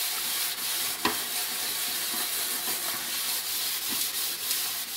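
Kitchen sponge with a scrap of steel wool scrubbing round the inside of an aluminium pot through a gritty paste of sugar and detergent: a steady rough rubbing, with a light tick about a second in. The sugar acts as a mild abrasive to lift blackened, burnt-on residue from the metal.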